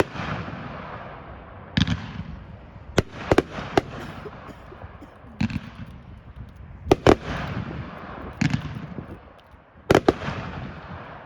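Consumer aerial fireworks cake firing, with sharp shell bursts every second or two, some in quick pairs, each followed by a long echoing decay.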